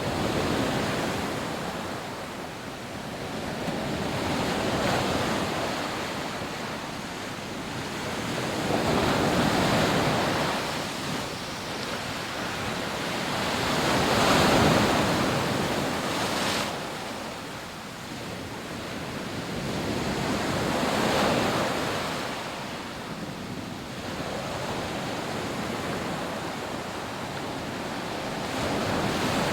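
Rough sea surf breaking on a sandy beach: a steady wash of waves that swells and fades every few seconds, with the biggest wave about halfway through.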